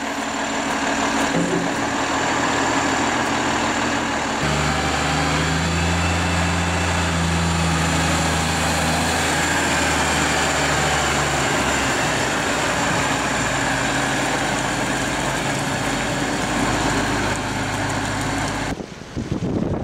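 JCB Fastrac 8250 tractor's diesel engine running steadily as the tractor drives, its note shifting in pitch a couple of times. Near the end the sound cuts to wind buffeting the microphone.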